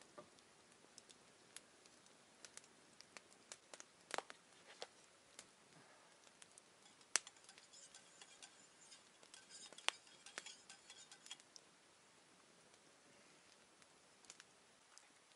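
Wood campfire crackling: faint, irregular sharp pops and snaps, busiest in the middle of the stretch.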